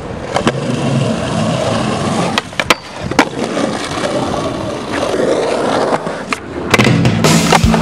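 Skateboard wheels rolling over rough concrete, with several sharp clacks from the board. Near the end the sound grows louder and denser as the board's trucks hit and scrape along a ledge.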